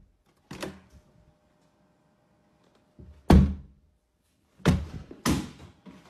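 Sharp thuds: a faint one near the start, a loud one about three seconds in, then two more about half a second apart near the end.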